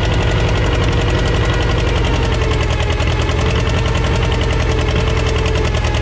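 Gasoline engine of an old John Deere crawler dozer running steadily, its even firing beat unbroken.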